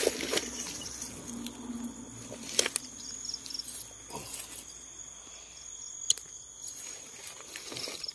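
Night insects calling in a steady high-pitched chorus with repeated pulsed chirps, over scattered clicks and rustles of movement through grass and reeds.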